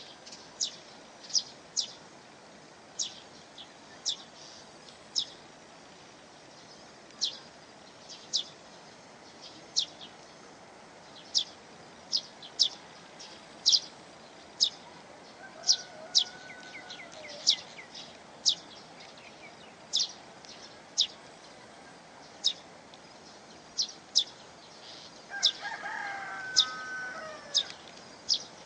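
Steady rush of a waterfall, with a small bird's short, sharp, high chirps about once a second. A longer, lower bird call comes about halfway through and again, louder, near the end.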